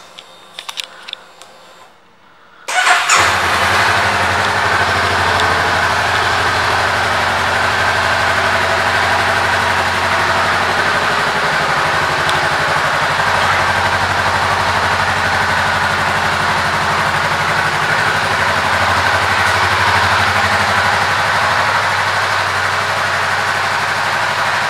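A few faint clicks, then about three seconds in the 2018 Honda Rebel 500's 471 cc parallel-twin engine starts and settles into a steady idle.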